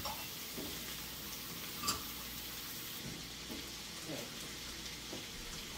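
Onion, mushroom and spinach sizzling steadily in bacon grease in a frying pan, with one short clink about two seconds in.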